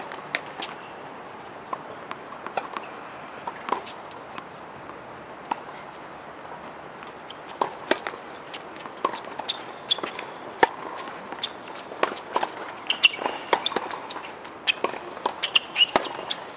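Tennis balls being hit with rackets and bouncing on a hard court during a rally: a string of sharp pops and knocks, sparse at first and much busier from about seven seconds in.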